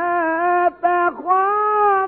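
A male Quran reciter's voice in melodic tajweed recitation, holding long drawn-out notes. There is a short break about two-thirds of a second in, then the voice dips and rises into a higher held note.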